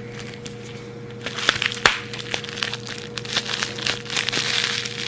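Packaging being handled and unwrapped: crinkling and rustling with scattered sharp clicks, starting about a second in. A faint steady hum sits underneath.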